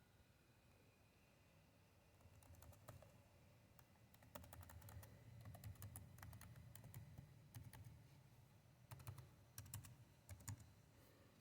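Typing on a keyboard: after about two seconds of quiet, a run of quick keystrokes with a deep thud under each click, with a few louder presses near the end.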